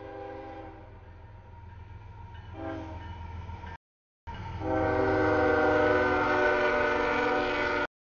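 CSX diesel freight locomotive sounding its horn for a grade crossing: a long blast trailing off, a short blast just under three seconds in, then a long, loud blast from about four and a half seconds as the locomotive reaches the crossing. A steady low rumble of the locomotive runs underneath.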